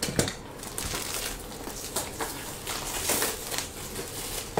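Packaging from a box of trading cards being handled, crinkling and rustling in irregular bursts with a few sharp clicks.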